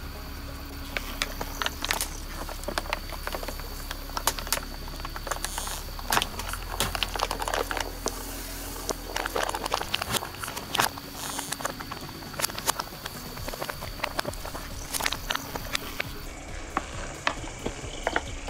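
Coca-Cola fizzing and foaming out of plastic bottles, with many irregular sharp crackles and pops from the bursting bubbles.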